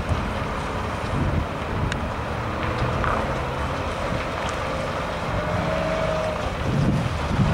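Diesel engine of a heavy low-loader truck running steadily, with wind noise on the microphone.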